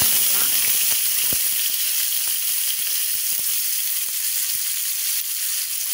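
Sliced onions frying in hot oil with crackled cumin seeds in a nonstick kadai: a steady sizzle with scattered small pops, strongest as the onions hit the oil and easing slightly after.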